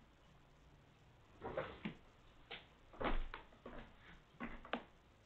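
Kittens scrambling and climbing: a run of soft knocks and scratchy scrabbles, about half a dozen, grouped between about one and a half and five seconds in, the loudest knock near the middle.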